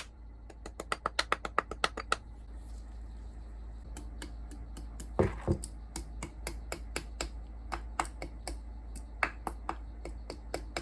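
A fast run of sharp clicks or taps, about seven a second, for the first two seconds, then scattered single clicks with a louder knock about five seconds in.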